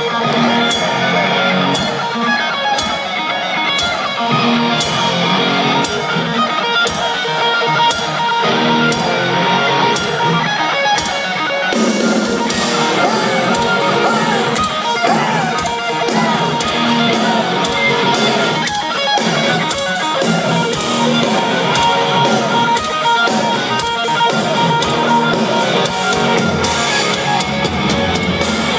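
Heavy metal band playing live in an arena, heard from the crowd: an electric guitar riff over a steady beat, then the full band comes in denser and fuller about twelve seconds in.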